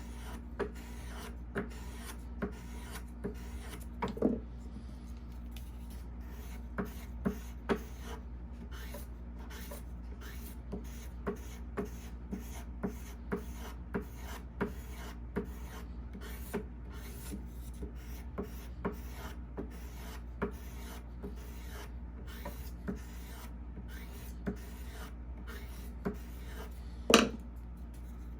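A hook knife being honed on abrasive sharpening sticks: short rubbing strokes of blade against stick, about one or two a second. Two louder knocks come about four seconds in and near the end, over a steady low hum.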